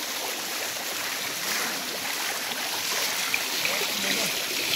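Water from a small stream running steadily, an even rushing sound.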